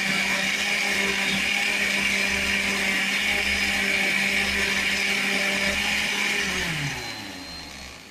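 Happymixx blender motor running steadily while blending beetroot, then switched off about six and a half seconds in, its whine sliding down in pitch as the motor spins down.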